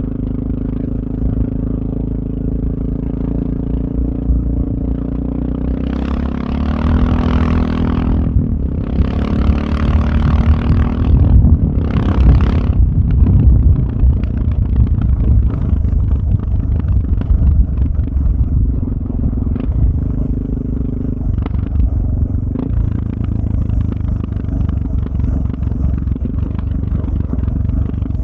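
Suzuki DR650's single-cylinder engine running through a Powercore 4 exhaust while ridden: an even, low exhaust note, then three louder surges between about six and thirteen seconds in, before settling back to a steady cruise.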